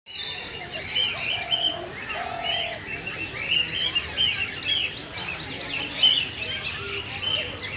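Aviary of small parrots such as cockatiels chirping, many short calls overlapping, with three lower, drawn-out notes in the first three seconds.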